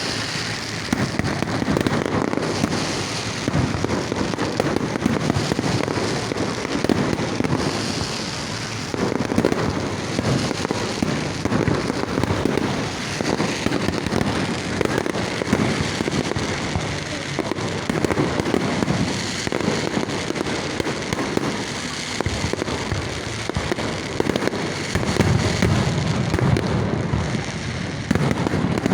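Fireworks display: a dense, continuous barrage of shell bursts and crackling, with heavier deep booms near the end.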